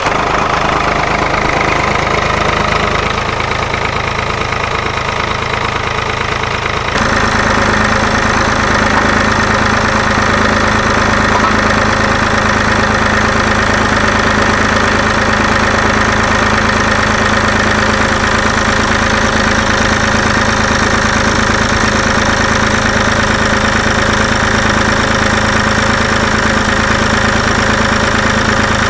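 David Brown tractor engine running steadily, getting louder about seven seconds in.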